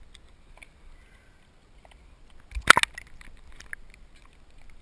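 Water splashing close to the microphone in one short, loud burst about two and a half seconds in, as small waves wash over a camera bobbing at the surface. Around it, faint lapping of water with a few small clicks.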